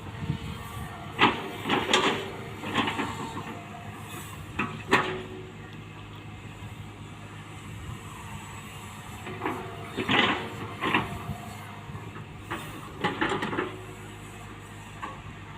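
Hitachi Zaxis 120 hydraulic excavator running steadily, with several clusters of sharp clanks and scrapes as it works, the loudest in the first few seconds and again past the middle.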